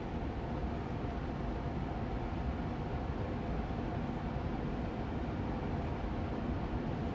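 Air purifier fan running steadily on medium speed: an even whooshing hum of moving air with a faint steady tone in it.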